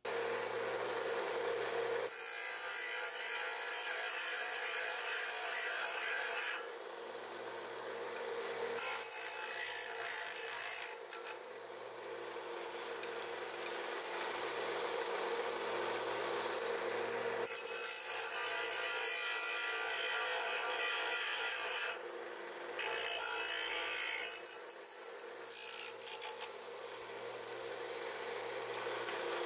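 Bench disc sander running while a piece of brass tubing is pressed against the sanding disc: a rasping grind over the motor's steady hum. The grinding gets louder and softer every few seconds as the piece is pushed on and eased off.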